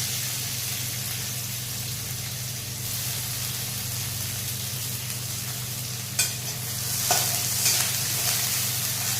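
Chopped onion sizzling in hot mustard oil in a kadai, over a steady low hum. From about six seconds in, a spatula scrapes and knocks against the pan a few times as the onion is stirred.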